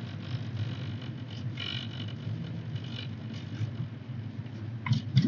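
Steady low rumble of a car heard from inside the cabin, with two short clicks near the end.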